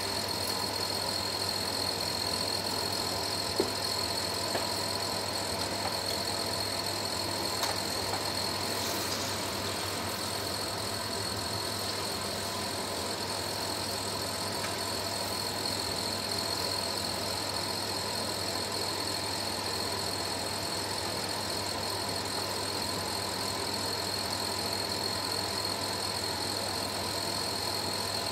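Bara (urad-dal fritters) deep-frying in hot oil in a kadai over a gas burner: a steady sizzle over a steady hum, with a few light clicks in the first several seconds.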